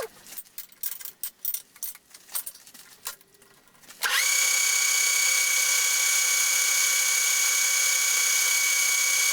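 Compressed-air blow gun clearing chips off freshly machined work on a lathe. It gives a few short puffs, then about four seconds in opens into a steady hiss with a high whistle.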